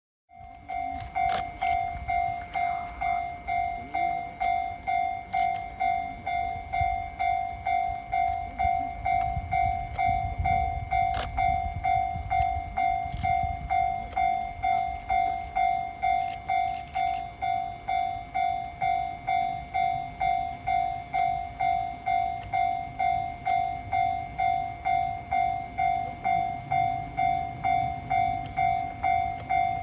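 Level crossing warning bell ringing steadily at about two dings a second, with the low rumble of a passing train underneath.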